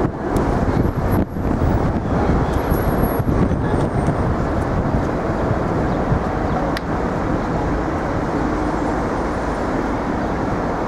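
Steady road traffic noise, cars running past on a busy city street.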